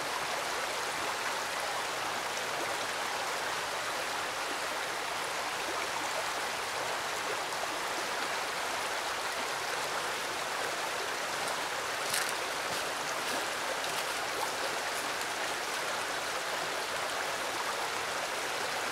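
A creek flowing, a steady, even rush of water with no change throughout, and one faint tick about twelve seconds in.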